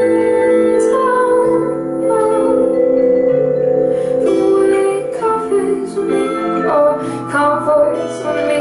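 Live instrumental passage of a slow pop song: acoustic guitar and keyboard, with notes struck on a vibraphone with mallets, more of them in the second half.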